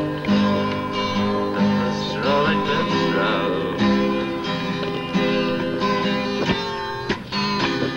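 Acoustic guitar strummed through a run of chords, with shorter, choppier strums near the end.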